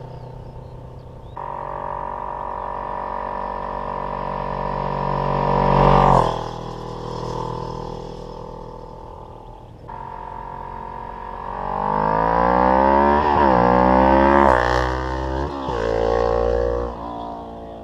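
2008 Kawasaki ER-6n parallel-twin motorcycle running under power. First a steady note climbs slowly in pitch and drops away sharply about six seconds in. Later it accelerates hard through the gears, the pitch rising and falling back at three upshifts, then fades.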